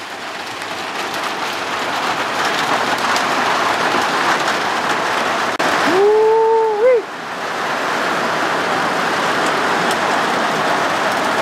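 Heavy rain falling steadily, a hiss that grows over the first couple of seconds. About six seconds in, a steady pitched tone sounds over it for about a second.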